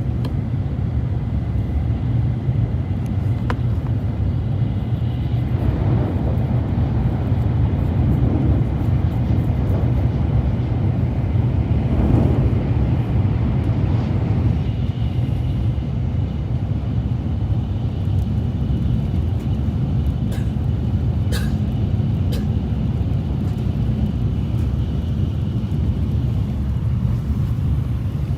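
Steady low rumble of a Shinkansen bullet train running, with a few faint clicks in the latter part.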